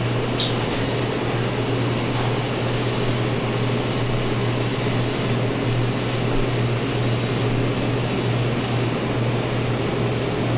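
Steady low machine hum with an even rushing noise over it, unchanging throughout, like running room machinery.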